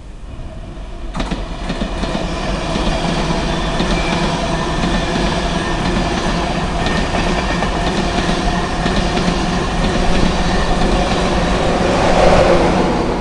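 A high-speed passenger train passing through a station at speed: a steady, loud rush of wheels on rail and moving air. It swells sharply about a second in and is loudest near the end as the rear of the train goes by.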